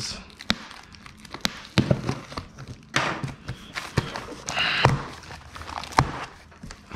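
Cardboard shipping box being handled and opened by hand: a series of sharp taps and knocks on the cardboard, with scraping and tearing of packing tape and flaps in between, the longest stretch about four to five seconds in.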